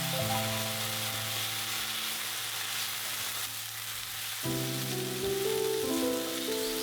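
Stir-fry ingredients sizzling in hot oil in a pan, a steady hiss throughout, under background music that thins out to a low held note in the middle and then comes back fuller.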